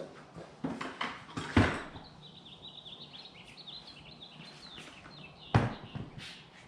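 BMW Vario side cases being unlatched and lifted off a motorcycle's mounts: a few clicks and knocks, the loudest about one and a half seconds in and again about five and a half seconds in. A bird chirps repeatedly in between.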